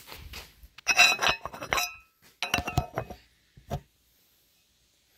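Metal clinking and rattling: two short clusters of ringing metallic clinks, then a single click.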